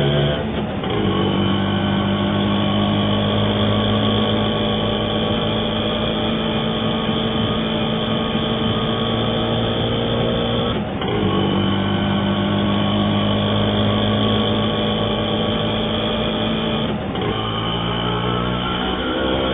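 Indian auto rickshaw engine running steadily. Its note shifts about a second in and again near seventeen seconds, with a brief dip around eleven seconds.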